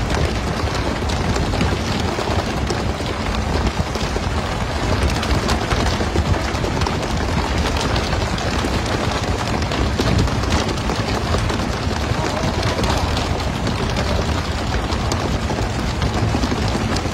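Steady rush of water spray and splashing along a pole-and-line fishing boat's side, over a constant low rumble. Many small slaps and knocks are heard through it as fish are jerked out of the water and land on deck.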